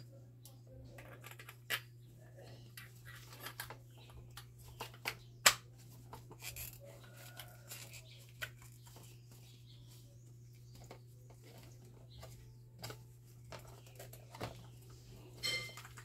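Metal parts of a fan motor clicking and knocking against each other as the stator and front housing are handled and fitted together, in scattered small clinks with one sharper knock about five seconds in. A steady low hum runs underneath.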